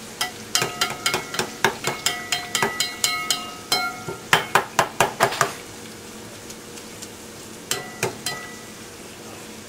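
Empanadas deep-frying in a pot of hot oil with a steady sizzle, while a metal spoon ladling oil over them clinks rapidly against the pot for the first five seconds or so, each strike ringing briefly. The sizzle then carries on alone, with a few more clinks near the end.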